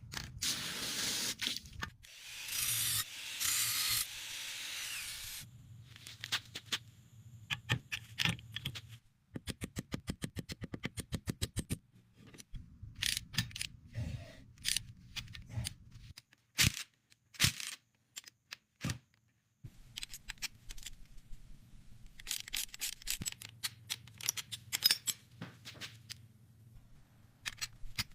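Hand work on a car in quick succession: a hiss for the first few seconds, a fast, even clicking for a few seconds near the middle, and scraping, rubbing and scattered knocks.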